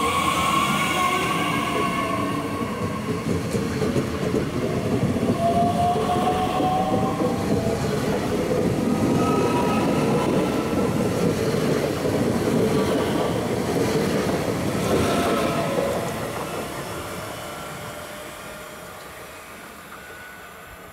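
Two coupled DB Class 442 (Bombardier Talent 2) electric multiple units passing close, with a whine from the electric drive that rises in pitch as the train picks up speed, over the rumble of wheels on rail. The sound fades over the last few seconds as the train draws away.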